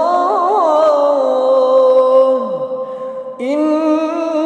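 Quran recitation by a single male voice in melodic tajweed style: a long ornamented note is drawn out, then its pitch falls away about two and a half seconds in. After a brief breath a new held phrase begins.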